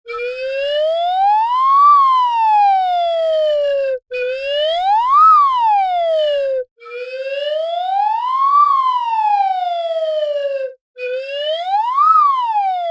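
Slide whistle played in four slow swoops, each gliding up in pitch and back down again. The first and third swoops are long and even; the second and fourth rise more quickly to a sharper peak.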